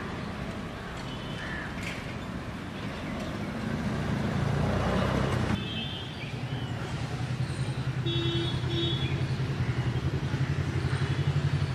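Road traffic noise that swells as a vehicle goes by and cuts off abruptly about five and a half seconds in. Then an engine runs nearby with a fast, even throb.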